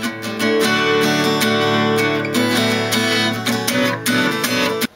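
Acoustic guitar strummed in steady chords, cutting off suddenly just before the end.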